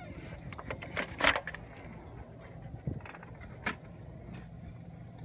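A few sharp clicks and knocks from RV door latch hardware being handled and fitted. The loudest cluster comes about a second in, with single knocks later, over a steady low hum.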